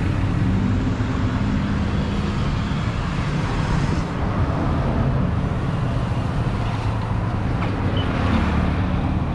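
Steady low hum of motor vehicle engines and road traffic, unbroken and even in level.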